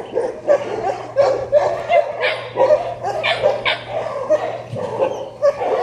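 Several dogs barking and yipping, short barks following one another without a break.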